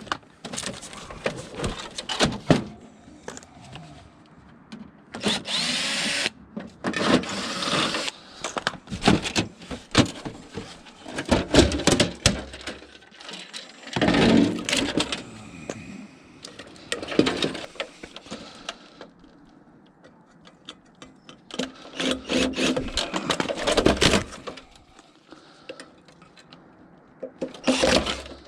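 Hand tools working on a discarded monitor to strip parts from it: irregular knocks, clatter and scraping bursts with short pauses between.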